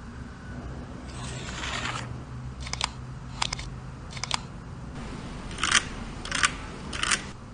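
Handling noise: a brief scrape about a second in, then six short, sharp clicks spaced about half a second to a second apart.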